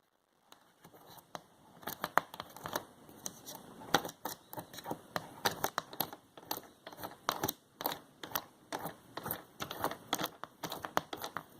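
Wing nuts being unscrewed by hand from the bolts of a carrier: many short, irregular clicks and scrapes from about two seconds in.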